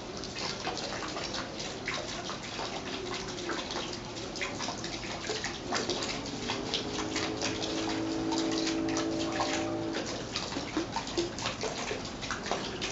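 Water trickling and splashing steadily into a pool, with many small drip-like splashes. About six seconds in, a low steady hum with several tones joins for about three seconds.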